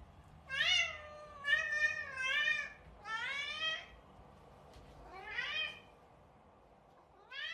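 Domestic cat meowing repeatedly: about five separate meows with pitch bending up and down, the middle two close together, and another meow starting near the end.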